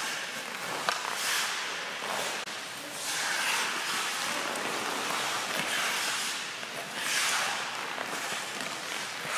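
Ice skate blades carving and scraping the ice in repeated swells of hiss as hockey players work their inside edges, with one sharp click about a second in.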